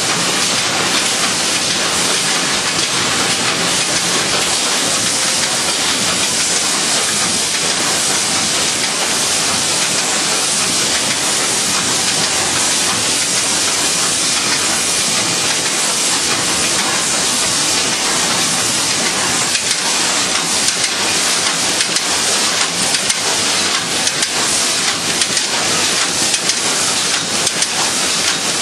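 Polypack total-closure shrink-wrap machine running: a loud, steady hiss with fine rattling.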